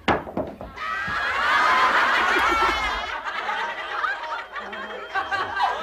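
Many voices laughing and shrieking together, loudest between about one and three seconds in.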